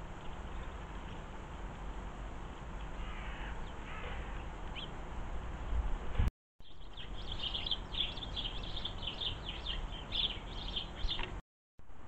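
Small garden birds chirping: a few faint calls at first, then a dense run of quick, high chirps lasting about five seconds, over a low steady background rumble. The sound cuts out abruptly twice, just after halfway and near the end.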